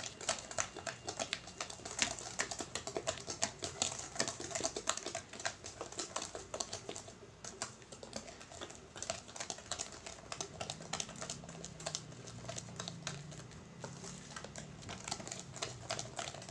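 Wire balloon whisk stirring cookie dough in a stainless steel bowl: rapid, irregular clicking and scraping of the wires against the metal as flour is worked into the creamed butter mixture.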